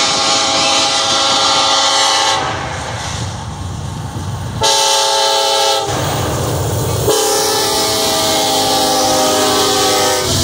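Kansas City Southern diesel locomotive's air horn sounding for a grade crossing: a long blast that ends about two seconds in, a short blast around five seconds, and a long blast from about seven seconds until near the end, the closing part of the long-long-short-long crossing signal. Between the blasts the locomotives' engines rumble and the train's wheels run on the rails.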